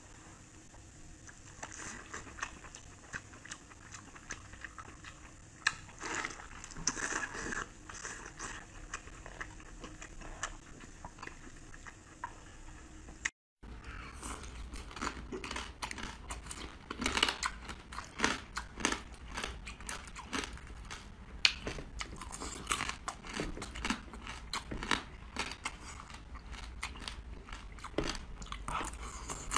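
Close-up eating sounds: chewing and biting on braised meat with a few sparse smacks, then, after a brief gap, a denser run of quick clicks and slurps as meat is sucked from clam shells.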